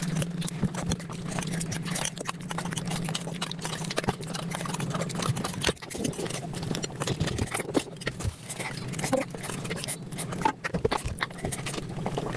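Mukbang eating sounds sped up about five times: chewing, smacking and mouth clicks packed into a fast, dense clatter, over a steady low hum.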